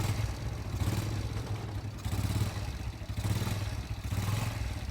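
Honda Wave's small single-cylinder four-stroke engine running, rising and falling in uneven surges about once a second as the throttle is worked. The bike has a fault that makes it die when the throttle is opened.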